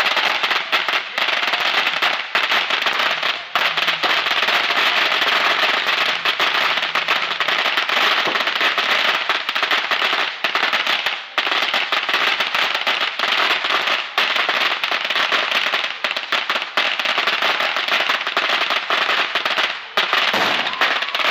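Fireworks grand finale: many shells crackling and popping at once in a dense, almost unbroken rattle, with only a few split-second lulls.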